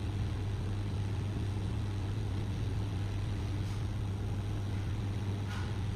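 Hot-air rework gun blowing steadily, a constant low hum with a hiss of air, while it melts the solder to seat a replacement LED on the module's pads.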